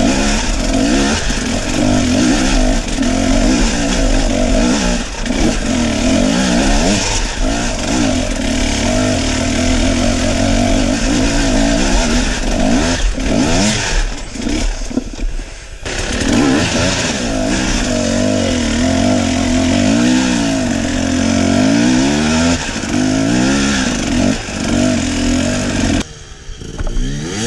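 Enduro dirt bike engine heard from the onboard camera, revving up and down as the bike climbs and picks its way over a rocky trail, with wind and trail noise. The engine eases off briefly about halfway through, and the sound turns quieter near the end.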